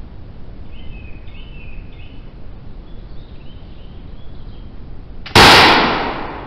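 A bobbed first pattern 1740 Brown Bess flintlock musket firing one black-powder shot about five seconds in. The loud report echoes away over about a second.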